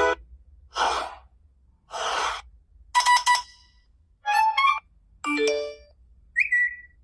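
A run of short iPhone alert tones played one after another: six brief sounds about a second apart, each followed by silence. The first two are soft swishes, the next three are quick chimes and little runs of notes, and the last is a short rising blip.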